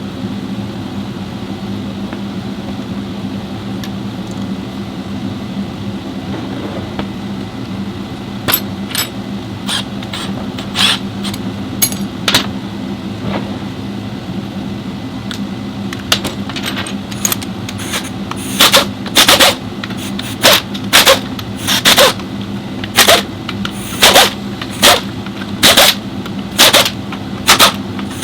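Pneumatic impact wrench firing in short, sharp bursts, scattered at first and then loud and regular at about one and a half bursts a second in the second half, over a steady low machine hum.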